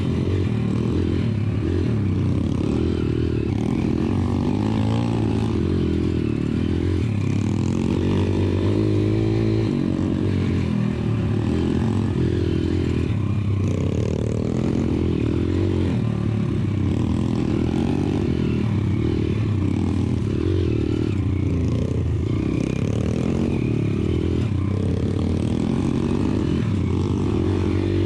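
YCF pit bike's single-cylinder engine running close up, its revs rising and falling continually under the throttle at low trail speed.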